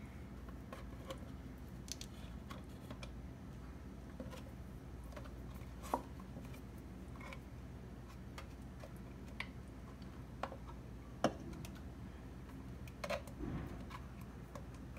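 Faint scattered clicks and light taps of a plastic gel bottle being handled over a plastic zip bag in a glass, the sharpest about eleven seconds in, over a steady low room hum.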